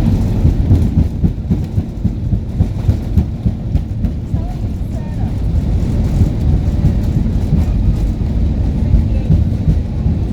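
Loud, low, rough rumble inside an Airbus A320neo's cabin during the landing, with frequent uneven jolts like wheels running on the runway.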